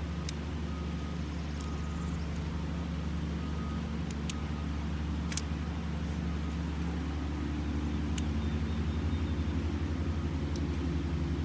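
Aluminium tent pole sections clicking together as the shock-corded poles are joined, a handful of separate sharp clicks, over a steady low hum that grows a little louder near the end.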